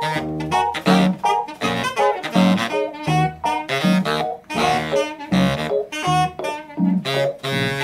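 Live jazz: saxophone playing a melody over a Rhodes electric piano, with a steady repeating low bass line underneath.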